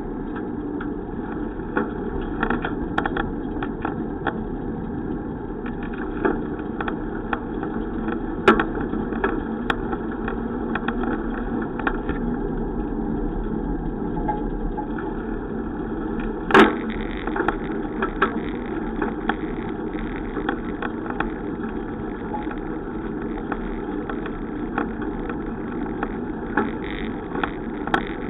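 Steady rumble of a moving bicycle ride, with scattered short rattles and clicks and a sharper knock about eight and again about sixteen seconds in.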